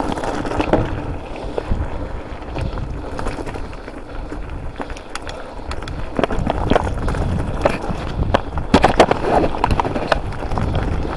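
Mountain bike rolling downhill over loose slate, its tyres crunching over the stones with a steady rumble and wind on the microphone. A dense run of sharp clatters comes from about six to nine seconds in.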